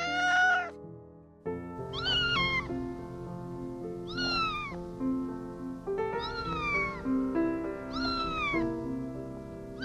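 A kitten meowing, one call at the start and then four more about every two seconds, each falling in pitch, over background music.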